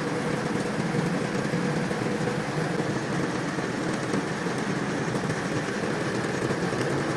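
Metal lathe running steadily while threading a long screw rod.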